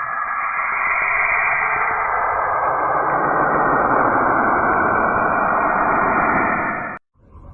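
Saturn's radio emissions converted to sound: a steady, dense rushing hiss that cuts off suddenly near the end.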